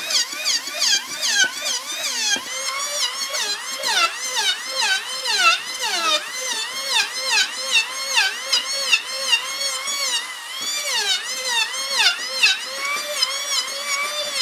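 Electric hand planer running while planing a pine board, its motor whine dipping and recovering in pitch about twice a second as it is pushed through repeated short passes.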